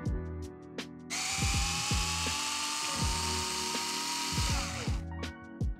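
Electric hex driver with a 2.5 mm bit spinning for about four seconds, unscrewing a screw from the underside of an RC car chassis: a steady whine over a hiss that sags and cuts out near the end. Background music with a steady beat underneath.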